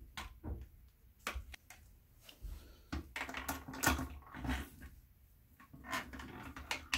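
Light plastic clicks and knocks as a Luxe Bidet Neo 320 attachment plate is set onto a toilet bowl and the plastic toilet seat is laid over it to line up the bolt holes. The knocks come scattered and irregular, bunched about three to four seconds in.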